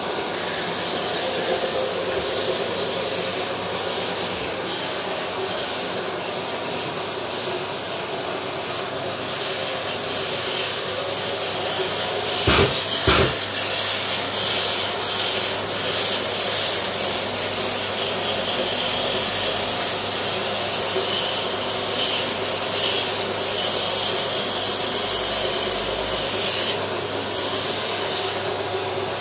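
Kirjes sanding system working: an abrasive pad rubbing on turned wood while a vacuum draws the dust through the pad, giving a steady rasping hiss over the hum of the running machines. Two sharp knocks come about twelve to thirteen seconds in.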